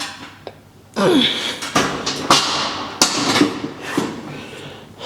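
A man grunting and exhaling hard with effort during leg press reps, in a series of loud, strained, wordless bursts starting about a second in, several falling in pitch.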